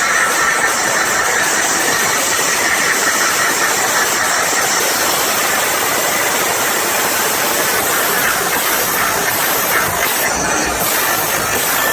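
A large crowd cheering and screaming, a dense, steady roar with no music beat under it.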